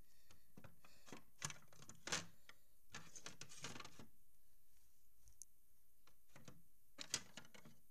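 Small plastic toy figures being handled and set down on a plastic playset: a few scattered light clicks and taps, with a quicker run of small clicks about three to four seconds in.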